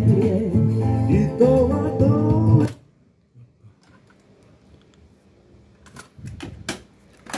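Music with guitar and singing playing from a cassette on a Sony TC-K77R cassette deck, cut off suddenly under three seconds in when the tape is stopped. A few sharp mechanical clicks follow near the end as the deck's transport keys and cassette door are worked.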